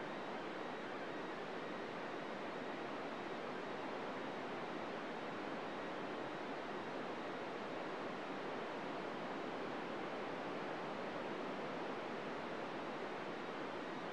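Steady static hiss from a 2-metre FM radio receiver tuned to the ISS downlink on 145.800 MHz, with no SSTV tones coming through: only noise, no usable signal.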